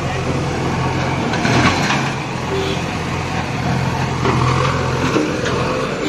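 Diesel engine of a JCB backhoe loader running steadily as the machine drives forward.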